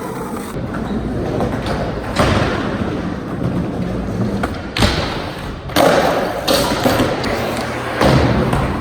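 A run of loud thumps and knocks, about five or six of them, over a steady rumbling noise.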